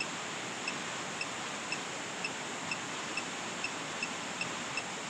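Steady hiss of outdoor background noise, with a faint, short, high-pitched pip repeating about twice a second.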